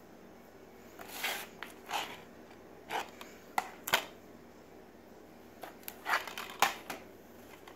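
Plastic DVD case being handled on a tile floor: scattered short taps, clicks and scrapes as it is flipped over and pressed by hand, with a lull in the middle.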